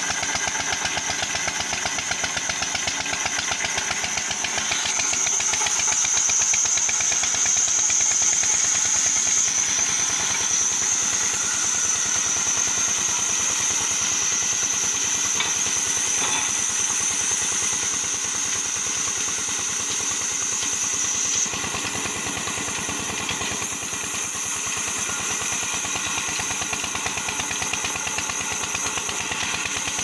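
Engine-driven band sawmill running: the engine gives a steady, rapid thudding while the band saw blade rips timber with a high steady whine, loudest from about five to nine seconds in. About two-thirds of the way through, the cutting sound drops suddenly as the cut ends, leaving the engine and the running blade.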